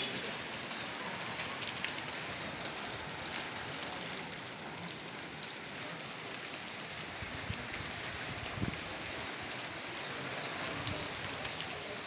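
Steady rushing noise of a nor'wester storm, wind and rain, with scattered light ticks.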